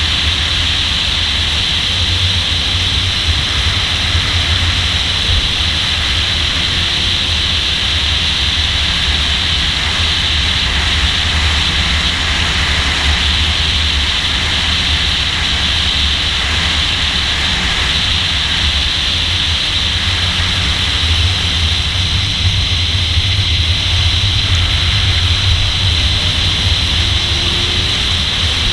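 Car driving at track speed, heard from a hood-mounted camera: a steady rush of wind over the microphone with a low engine and road rumble underneath.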